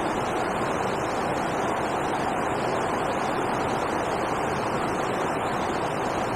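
Steady rush of river water pouring over a weir, an even, unbroken noise.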